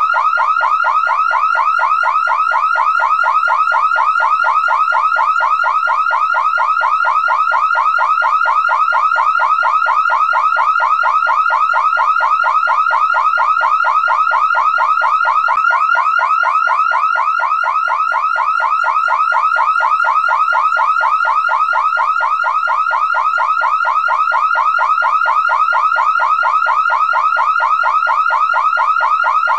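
Car alarm siren sounding continuously, a loud electronic tone sweeping quickly in pitch and repeating several times a second without a break.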